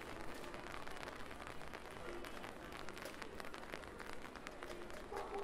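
Rain falling on a city street, heard as an even hiss full of many small, sharp drop ticks.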